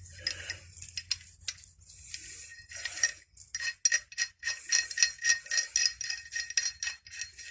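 Steel spanners and wrench heads being handled and rubbed with beeswax: faint rubbing at first, then from about three seconds in a quick run of light metallic clinks with a ringing tone as the tools knock against each other.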